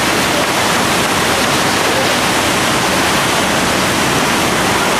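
Whitewater of a large Colorado River rapid rushing steadily, a continuous churning roar of big waves at high flow.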